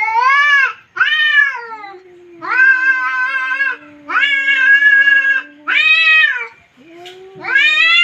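Two domestic cats caterwauling at each other in a hostile standoff. One gives about six drawn-out, rising-and-falling yowls, each around a second long, while the other holds a long, low yowl underneath that breaks off once near the middle and starts again.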